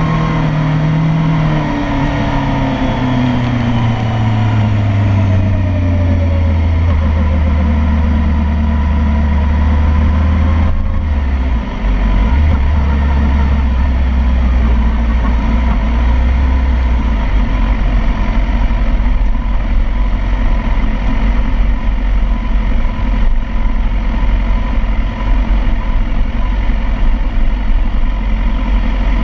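BMW sport motorcycle's engine heard from on the bike, its revs falling as it slows down with fading wind rush, then running low and steady near idle from about twelve seconds in as it rolls slowly.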